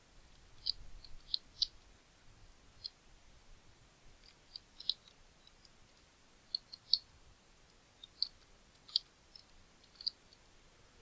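Computer keyboard keys clicking in short, irregular runs of keystrokes as text is typed.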